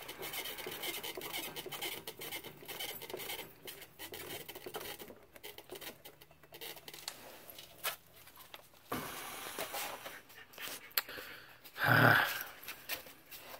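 Scratching and rubbing of a hand turning the handwheel of a main water shut-off gate valve, with scattered light clicks; a short louder rustle near the end.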